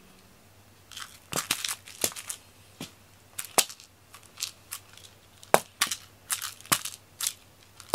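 A toy mouse on a cat teaser string is flicked and dropped onto a foam floor mat, giving a run of sharp, irregular taps and clicks.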